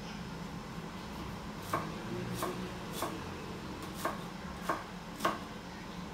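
Kitchen knife slicing a red onion on a cutting board: six sharp strokes of the blade on the board, about one every 0.6 seconds, starting about a second and a half in.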